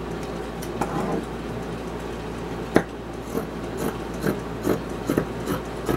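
Scissors cutting across a black trouser leg: a sharp snip a little before halfway, then steady snips of the blades closing through the fabric, about two to three a second.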